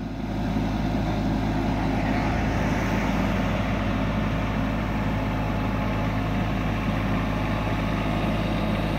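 Kubota mini excavator's diesel engine running steadily, an even, unbroken hum.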